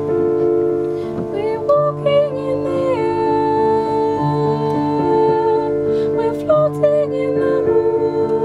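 A woman singing a slow melody over sustained chords from an electronic keyboard. The voice comes in about a second in and holds one long note through the middle.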